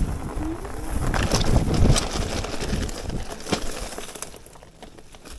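E-bike riding over dry grass and brush off the trail: low rumble of tyres and wind on the microphone, with sharp cracks of twigs and rattles about one, two and three and a half seconds in. It grows quieter near the end.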